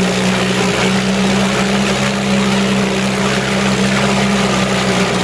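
Two-stroke 1970s 4 hp Yachtwin (Evinrude-built) outboard motor running steadily with its fuel line disconnected, on only the last of the fuel in its carburetor, shortly before it runs dry.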